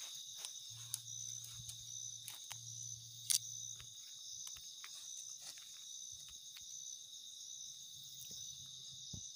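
Night insect chorus of crickets: a steady high-pitched trill with a regular pulsing chirp on top, over faint rustling of steps through dry leaves and undergrowth. A single sharp crack about three seconds in.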